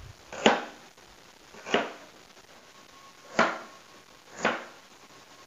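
Chef's knife slicing through fresh red ginger root and knocking onto a plastic cutting board: four separate cuts, each a short sharp knock, spaced about a second or more apart.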